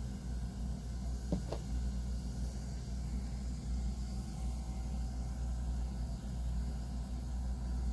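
A steady low rumble, with two faint clicks about a second and a half in.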